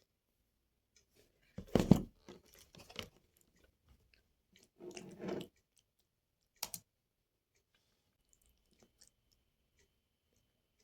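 A person eating from a bowl of sautéed carrot and zucchini with yogurt, corn and meatballs: a few separate chewing and crunching sounds, the loudest about two seconds in, with a sharp click near seven seconds.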